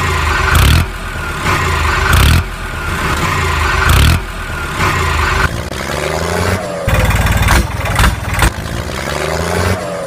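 A tractor engine running and revving, laid over the toy scene as a sound effect. It changes abruptly several times, as if short clips were cut together and repeated.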